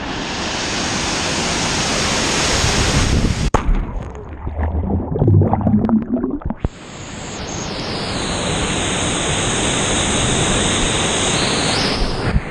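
Waterfall pouring into a plunge pool, a steady loud rush heard close up. About three and a half seconds in, the rush cuts off as the camera goes underwater, giving way to muffled bubbling and sloshing for about three seconds. Then the waterfall's rush returns as the camera comes back up.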